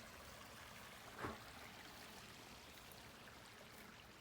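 Faint, steady rushing of a flowing river, with one brief knock a little over a second in.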